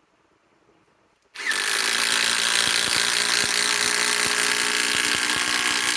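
Metabo HPT WH18DDX 18-volt subcompact cordless impact driver starting up about a second and a half in and hammering steadily, with a motor whine and rapid knocks of the impact mechanism, as it drives a 4-inch TimberLOK screw into timber.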